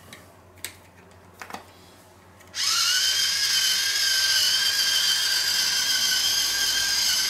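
Battery-powered electric salt mill grinding: after a couple of light handling clicks, its motor starts about two and a half seconds in with a slight rise in pitch, then runs as a steady high whine.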